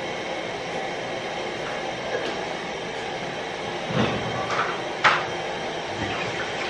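A steady mechanical hum runs throughout, with a dull knock about four seconds in and a sharp clatter of kitchenware about five seconds in.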